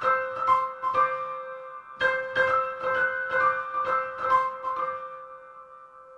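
Background music: a melody of quick keyboard notes, with a short break about two seconds in, ringing out and fading away over the last second or so.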